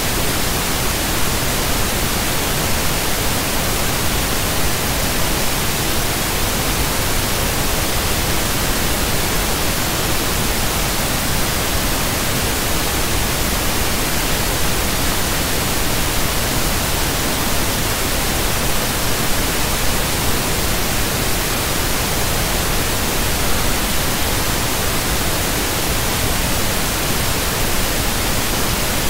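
Steady, fairly loud static hiss, even from low to high pitch and unchanging throughout, with no other sound in it.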